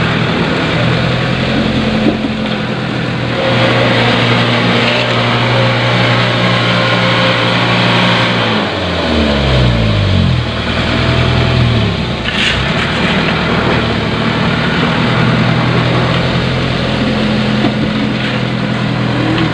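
Diesel engine of a loaded light dump truck working under load as it pushes its rear wheels through a deep muddy rut, running steadily at high revs. About halfway through the revs drop sharply in a few falling sweeps, then pick up and hold steady again.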